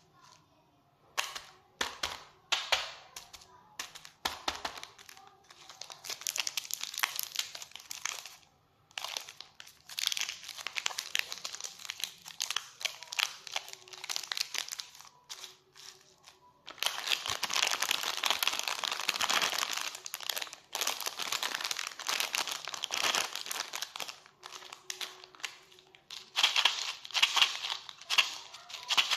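Plastic candy-bar wrappers crinkling as they are handled and squeezed, in a series of crackly bursts separated by short pauses.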